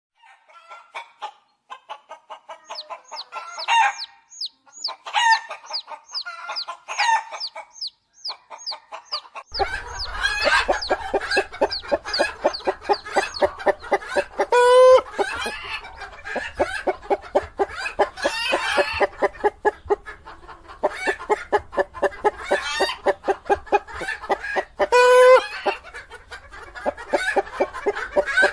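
Hen clucking among peeping chicks: many short, falling, high cheeps over the hen's rapid clucks. About a third of the way in the sound becomes busier, with a low hum underneath and two louder, drawn-out calls.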